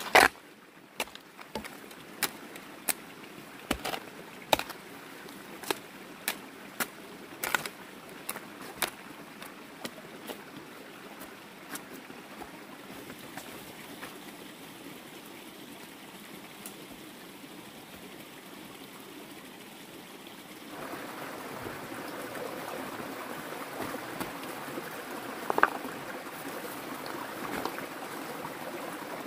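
A digging tool striking into the ground in a steady rhythm, about three strikes every two seconds, then the strikes stop. A steady rushing noise runs under it and grows louder about two-thirds of the way through.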